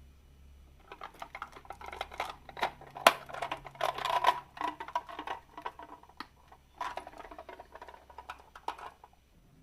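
Marbles rolling and clacking down a wooden HABA marble run. A dense string of sharp clicks starts about a second in, eases briefly around the middle, and stops just before the end.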